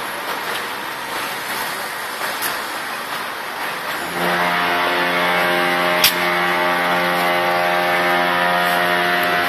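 Ship's horn sounding one long, steady blast that starts about four seconds in, over wind and harbour noise. A single sharp click falls in the middle of the blast.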